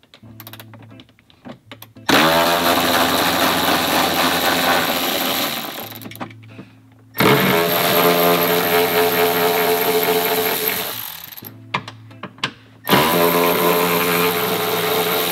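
Cordless power tool spinning bolts out of the seat and seatbelt floor anchors in three runs of about four seconds each, its motor whining up at each start. Background music plays underneath.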